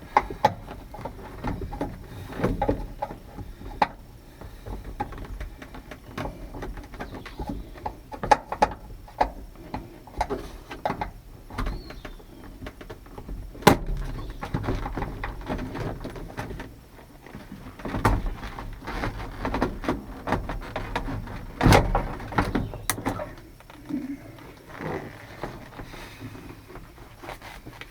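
Irregular clicks, taps and knocks of hands and tools working on a pickup truck door's handle and latch parts, with a few sharper knocks about 14 and 22 seconds in.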